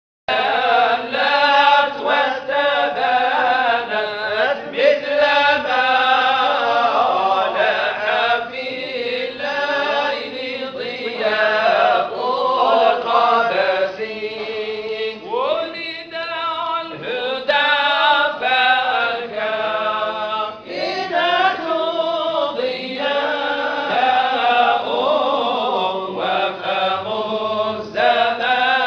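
A group of men chanting together in unison, a Tijani Sufi dhikr, the melody rising and falling. It cuts in abruptly.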